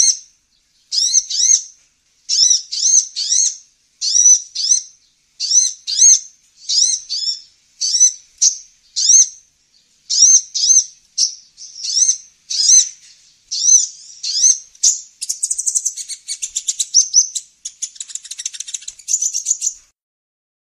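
Kolibri ninja, a sunbird, giving high, sharp chirps in short phrases roughly once a second: the kind of call played as a lure to draw these birds in. Near the end the chirps speed up into a fast rattling chatter, then stop.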